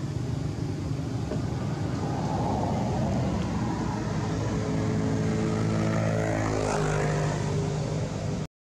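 A motor engine drones steadily, with engine tones sliding in pitch about five to seven seconds in, as if passing by. The sound cuts out abruptly just before the end.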